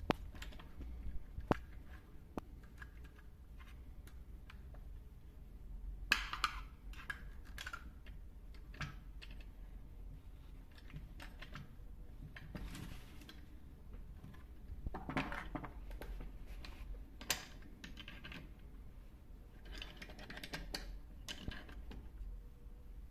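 Faint scattered clicks, taps and short rattles of metal and plastic parts being fitted back onto a chainsaw by hand, with a few louder clusters along the way.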